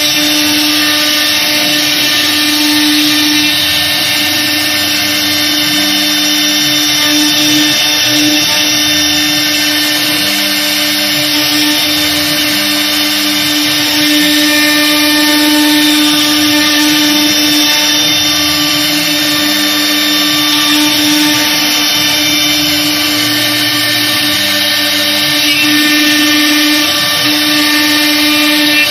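CNC router spindle running at speed with its bit carving grooves into an MDF door panel: a steady whine and hum over the noise of the cutting, swelling slightly now and then.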